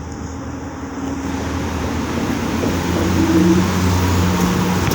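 A motor vehicle's engine running steadily under a rushing hiss of wind, growing louder over the seconds.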